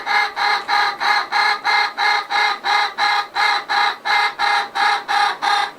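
A pet parrot giving a loud, rapid call, one short note repeated evenly about three times a second, each note on the same pitch.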